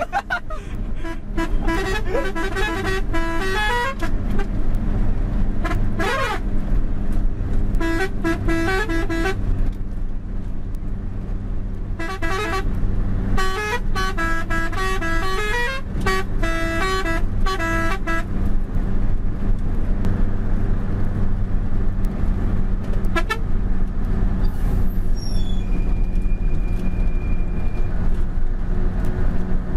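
Mitsubishi Fuso truck's diesel engine running steadily on the move, heard from the cab, with repeated bursts of horn tooting in short notes of changing pitch, most of them in the first eighteen seconds or so.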